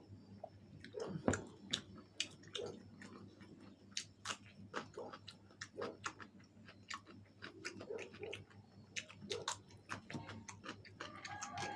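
Close-miked chewing of fried chicken wings, with crunchy bites and irregular sharp clicks and smacks. A brief pitched sound starts near the end.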